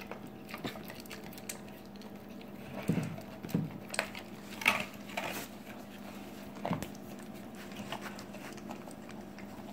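Wolfdog eating raw ground deer meat mixed with kibble from a stainless steel bowl: quiet chewing and smacking, with a few louder crunches and clicks between about three and seven seconds in, over a faint steady hum.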